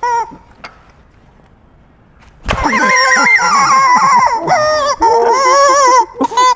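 Goose-like honking: one brief honk at the start, then quiet for about two seconds. A sudden loud onset about two and a half seconds in leads into a steady run of high, wavering honks.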